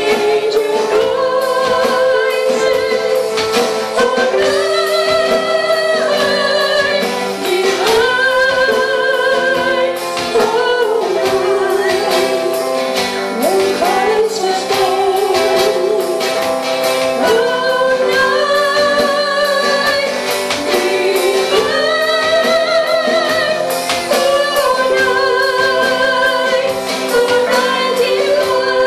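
Live gospel worship music: women singing held notes with vibrato, accompanied by acoustic guitar, keyboard and drums with a steady beat.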